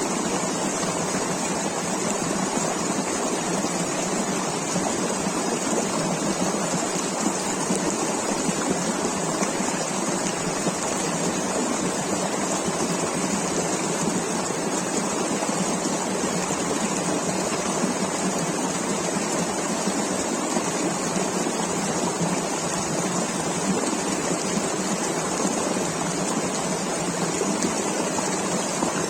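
River water rushing and splashing over stones in a steady, unbroken stream.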